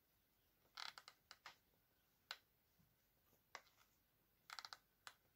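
Near silence with faint scattered clicks, two quick runs of them about a second in and near the end, from a hot glue gun being worked as glue is laid along the rim of a small terracotta pot.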